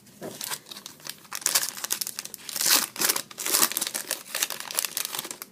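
Plastic wrapper of a trading card pack being crinkled and torn open, a dense run of crackling that is loudest in the middle.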